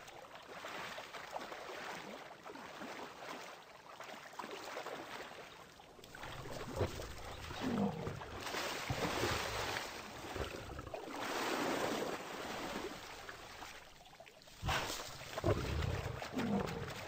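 Splashing and sloshing of large animals wading and running through a shallow flooded river, coming in uneven bursts, with a couple of short animal calls in the middle and near the end.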